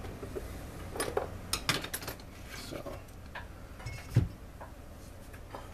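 Light clicks and clinks of metal engine parts and a grease can being handled on a workbench, a quick cluster of them between one and two seconds in, then a single dull knock about four seconds in.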